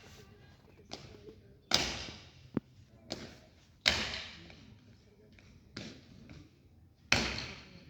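Soldiers' boots stamping hard on the ground in parade drill: three loud, sharp stamps a couple of seconds apart, each with a trailing echo, and lighter knocks in between.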